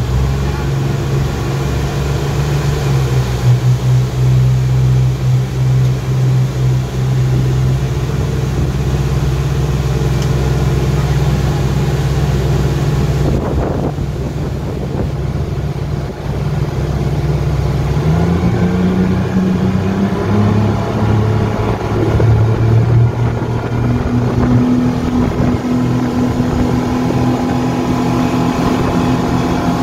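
Yamaha 250 hp four-stroke outboard engine on a speedboat, running steadily at low speed, then rising in pitch about two-thirds of the way through as the throttle opens and the boat picks up speed. Water rushes along the hull and wake underneath.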